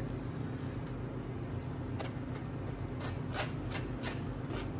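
Wooden spoon scraping and tapping against a wire-mesh strainer while wet crushed pineapple is mashed and pushed out of it, a scatter of soft scrapes and clicks that come more often from about two seconds in, over a steady low hum.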